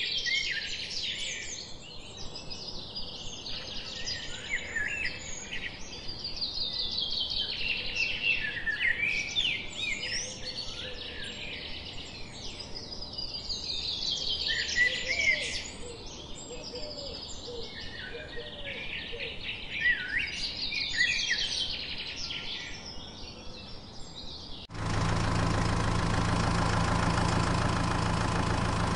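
Birdsong: bursts of high chirping and trills, repeated every few seconds. About 25 s in it cuts off abruptly and a steady engine drone starts in its place, the sound of the miniature tractor.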